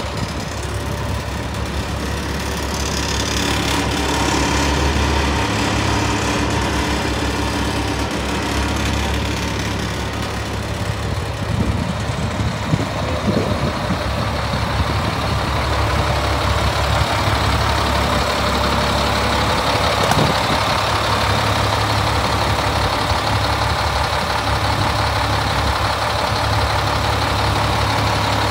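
GMC C7500 medium-duty truck engine idling steadily.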